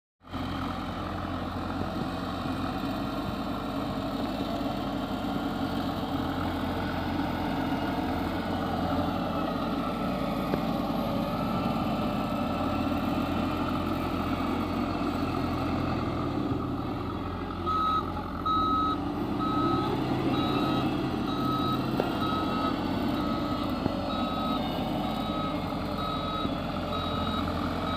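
Heavy diesel road-construction machinery running steadily with a low rumble. About two-thirds of the way in, a reversing alarm starts beeping at an even pace and keeps on to the end.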